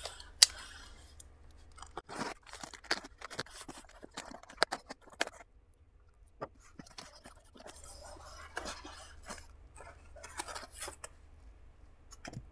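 Cardboard shipping box being opened by hand: packing tape torn along the seam and the flaps pulled open, with irregular cardboard crackles, scrapes and knocks. A sharp click about half a second in is the loudest sound.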